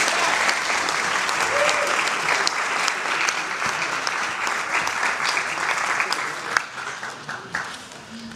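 Audience applause, fading away over the last couple of seconds.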